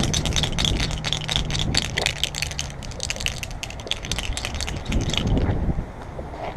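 Rapid rattling clatter of many small hard clicks, lasting about five seconds and then stopping.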